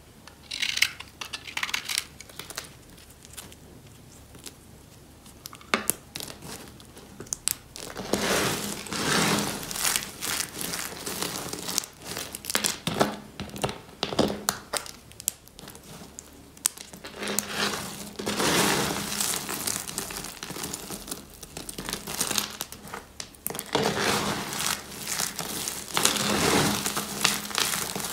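A knife shaving a few strokes off a bar of dry retro soap, then hands scrunching and crushing a heap of dry soap flakes in repeated bursts of crisp, crunchy crackling.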